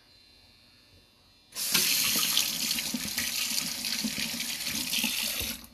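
Kitchen faucet running into a stainless steel sink: it comes on suddenly about a second and a half in as a steady rush of water and is shut off just at the end.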